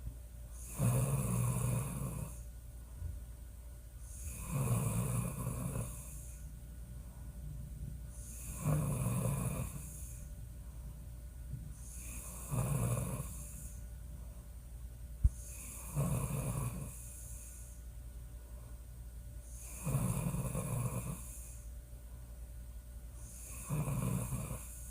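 A woman snoring in her sleep, one snore about every four seconds, each lasting a second or so, over a steady low hum. A single sharp click sounds about fifteen seconds in.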